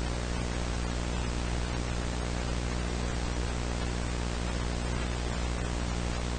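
Steady static hiss with a low hum and its overtones beneath it, unchanging in level.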